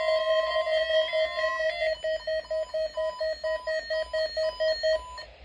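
Electronic weather radio alert tones for a required weekly test: a steady tone with higher tones stepping above it, then quick even beeping about five times a second that stops shortly before the end.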